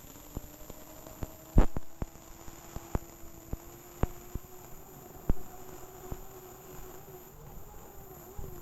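Unlimited hydroplane's gas turbine engine whining steadily through the onboard camera, its pitch creeping up slightly, with irregular sharp knocks throughout, two louder ones about one and a half and five seconds in.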